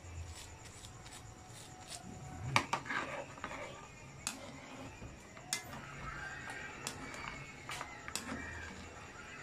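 Pork cubes and ribs going into a hot, steaming wok: scattered sharp pops and clicks, the loudest cluster about two and a half seconds in, over a low steady hum.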